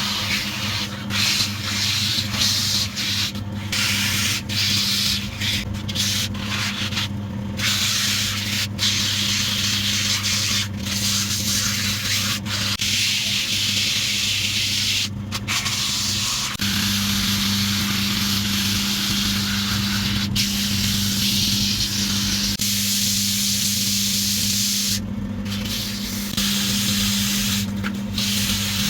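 Wood lathe running with a steady hum while sandpaper is held against the spinning workpiece, giving a loud even hiss that breaks off briefly each time the paper is lifted.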